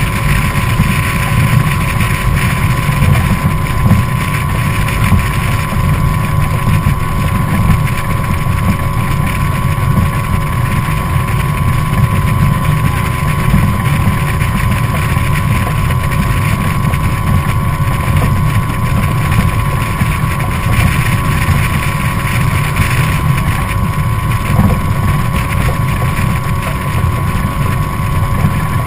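Evinrude 50 hp E-TEC two-stroke outboard motor running steadily with the boat under way, a constant low rumble with a steady whine over it. Wind buffets the microphone.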